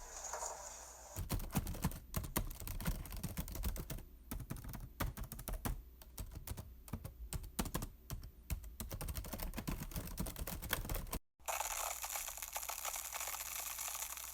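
Typing on a computer keyboard: fast, irregular key clicks for about ten seconds. It cuts off to a moment of silence, and a steady hiss-like noise follows.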